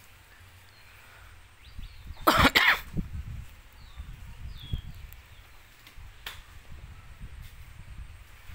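A short, loud, cough-like double blast of breath about two seconds in, followed by a couple of faint clicks.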